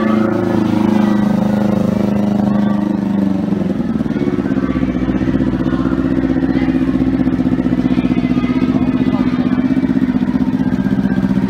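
Motorcycle engine running at a steady idle, its firing pulses settling into an even rhythm from about four seconds in.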